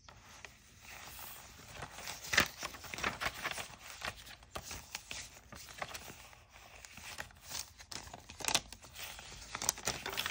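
Paper pages of a handmade mixed-paper journal being turned and handled: irregular rustling and crinkling of stiff paper and crumpled kraft paper. A sharper crinkle comes about two seconds in, and the rustling grows busier near the end as a crumpled kraft-paper page is lifted.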